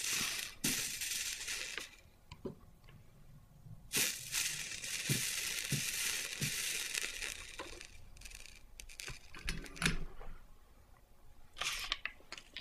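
Flux sizzling under a soldering iron tip as solder is melted onto a box hinge: a spell of sizzling at the start, a longer one from about four seconds in, and a short one near the end, with light clicks in between.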